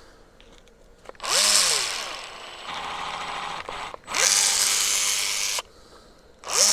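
A power tool run in three bursts of a few seconds each, with a hiss and a whine that slides in pitch as each burst starts.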